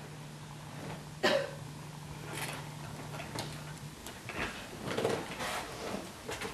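Quiet room sound with a steady low hum that stops about four seconds in, and a few short scattered noises, the sharpest about a second in.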